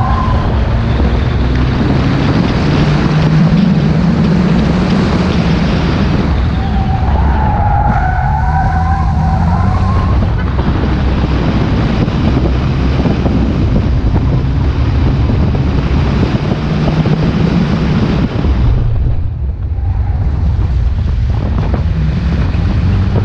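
Four-cylinder engine of a 2002 Honda City 1.5 VTEC driven hard on a track, its revs rising and falling through the corners. A brief high squeal from the tyres comes about eight seconds in, and the engine sound dips briefly around nineteen seconds in as the throttle is lifted.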